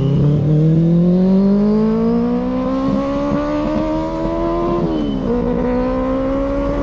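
Motorcycle engine accelerating under load, its pitch climbing steadily for about five seconds, dropping sharply at a gear change, then climbing again in the next gear.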